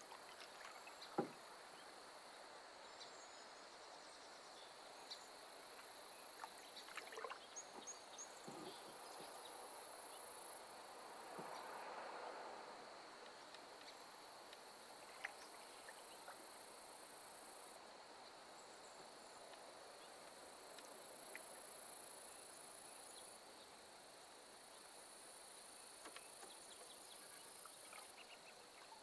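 Faint sounds of a wooden canoe being paddled on calm water: a sharp knock about a second in, then a few lighter knocks and soft swishes of the paddle. Under them, insects drone in a steady high tone, with a higher buzz that starts and stops in long spells.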